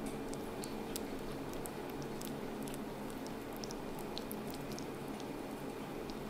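Very young kittens squirming and pawing against each other on fleece bedding: faint scattered small clicks and rustles, over a steady low hum.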